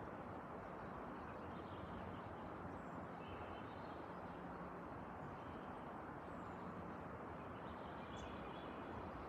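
Faint birds chirping now and then, a few short high calls spread across several seconds, over a steady low background hum and hiss.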